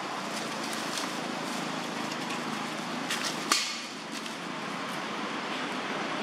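Crackling rustles of dry leaf litter over a steady hiss, with one sharp knock about three and a half seconds in.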